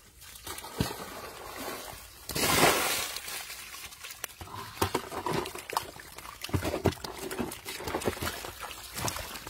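Mud, water and catfish tipped out of a plastic basin in one heavy wet pour about two and a half seconds in. Scattered wet slaps and taps follow as the catfish flop in the mud and are picked up into the basin.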